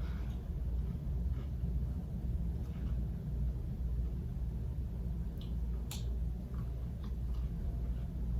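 Faint chewing and mouth clicks from eating a fried chicken sandwich, with a few sharp little clicks, the clearest about six seconds in, over a steady low rumble.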